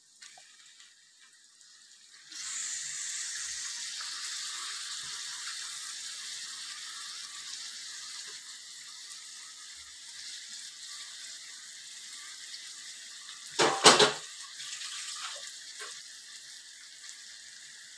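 Raw chicken pieces sizzling in hot onion-tomato masala on a flat tawa pan: a steady frying hiss that starts suddenly about two seconds in as the chicken goes into the pan, then slowly dies down. A brief loud double sound breaks in near the end.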